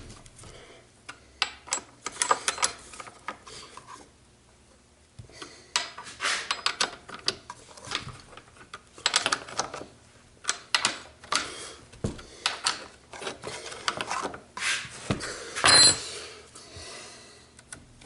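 Metal parts of a chainsaw being handled during a chain change: irregular clinks, rattles and short scrapes with pauses between them. Near the end there is one louder, ringing metal scrape.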